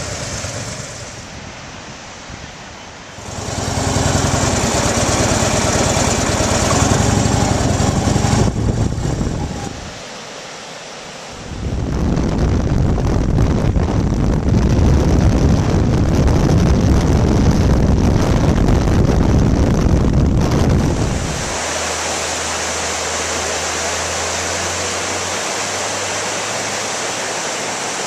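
Motorcycles running, with heavy wind rushing over the microphone while riding, in loud stretches broken by short quieter gaps. From about three-quarters of the way through there is a steady, even rush of water from a river's rocky rapids.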